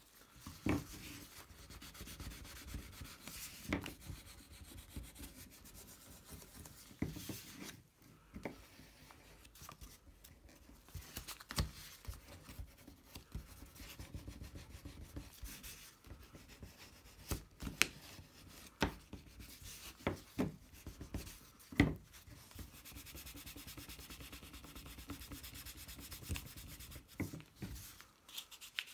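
Gloved fingers rubbing graphite powder into a black resin 3D-printed part on a paper-covered surface, working up a metallic finish: a soft, dry, scratchy rubbing. A few sharp knocks break it, the loudest about two-thirds of the way through.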